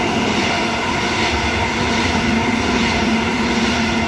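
Eight-car Sydney Trains OSCAR (H-set) electric train running through the platform at speed without stopping: a steady, loud rumble and rush of wheels on rail as the carriages go by, with a steady hum under it.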